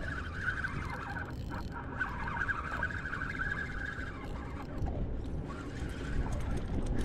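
Spinning fishing reel being cranked, a rattly whir from its turning gears and bail for about four seconds, then briefly again near the end. A steady low rumble of wind on the microphone lies underneath.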